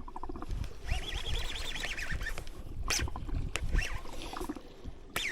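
Water slapping against a small fishing boat's hull with an uneven low rumble, and a few sharp clicks.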